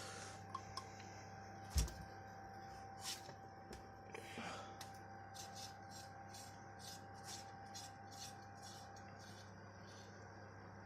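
Small metallic clicks and taps from hand work on a moped engine: one sharp knock about two seconds in, then a run of light clicks about two a second. A steady electrical hum runs underneath.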